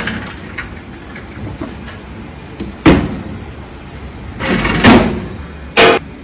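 Kitchen items being handled and set down: a sharp knock about three seconds in, a longer sliding rattle near five seconds, and another knock just before the end.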